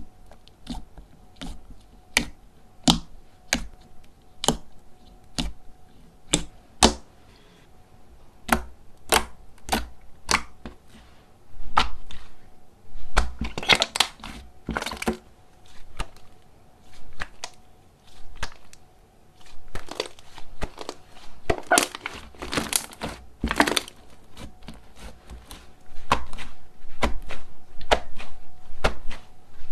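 Slime worked by hand, giving a string of sharp pops and clicks roughly one to two a second, then longer runs of crackling in the second half.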